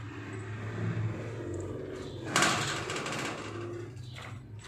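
Scratchy rustling of a cat rubbing its face and cheek against the plastic bristles of a wall-mounted self-grooming brush, with one loud scrape about two and a half seconds in, over a steady low hum.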